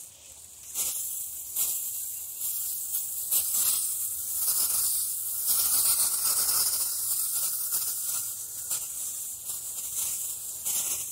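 Water spraying from a garden hose wand onto soil and plants: a steady hiss that comes up about a second in and is loudest around the middle.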